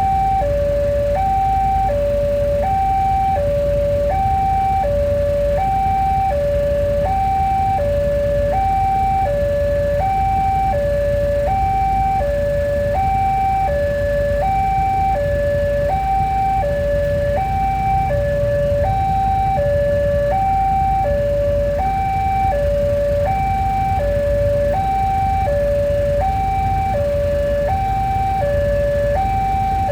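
Indonesian railway level-crossing warning alarm sounding continuously, an electronic signal alternating evenly between a higher and a lower tone, the warning that a train is approaching. A steady low rumble runs underneath.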